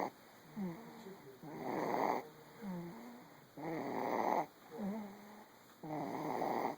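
Snoring in a steady rhythm, about one breath every two seconds, three in all. Each breath is a noisy snore followed by a short pitched, wavering sound.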